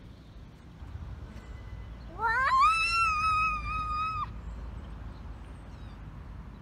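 A young girl's high-pitched squeal. It sweeps up quickly, holds for about two seconds at one high pitch with a slight wobble, then stops short.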